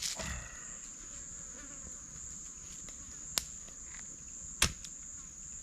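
Steady high-pitched insect chorus in the bush. It is broken by a sharp knock about three and a half seconds in and a louder one about a second later.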